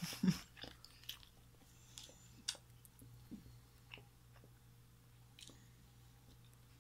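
Faint chewing of a mouthful of natto (sticky fermented soybean) sushi roll wrapped in seaweed, with scattered soft wet mouth clicks.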